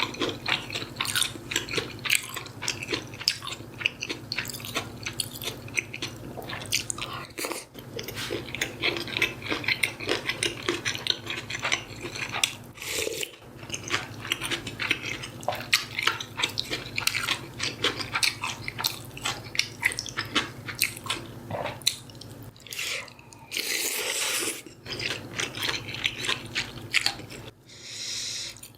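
Close-miked eating: chewing and biting with crisp, crunchy crackles, dense and irregular throughout.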